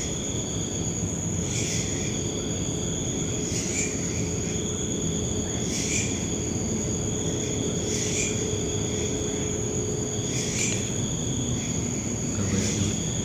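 Night insects, likely crickets, trilling steadily at a high pitch, with a louder chirp recurring about every two seconds, over a low steady background rumble.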